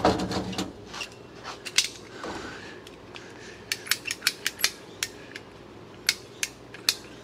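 Hand ratchet PVC pipe cutter being squeezed through Schedule 40 PVC pipe: a string of sharp clicks, about four a second, beginning about halfway through, after a brief clatter as the tool is picked up.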